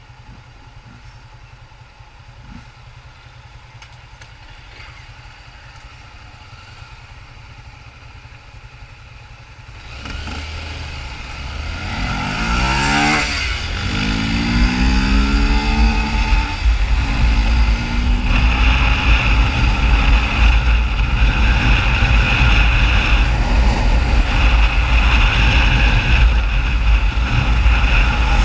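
Motorcycle engine idling faintly while stopped, then about ten seconds in it revs up and pulls away, the pitch rising and dropping through the gear changes, and settles into steady riding noise at speed.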